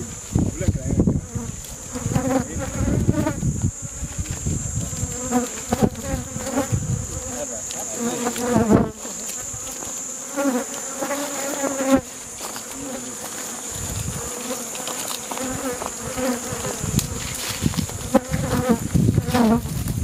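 Many honeybees buzzing around a disturbed hive, the buzz rising and falling in pitch as bees fly past close by.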